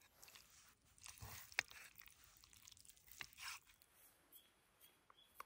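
Faint handling noises of camp cooking: light rustles with a couple of sharp clicks, about one and a half and three seconds in, as noodles and ingredients are worked in a camp pot.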